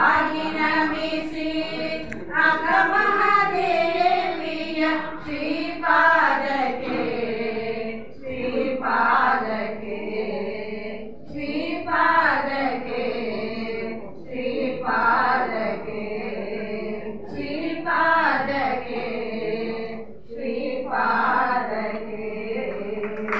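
A group of women singing in chorus, in phrases that start again about every three seconds.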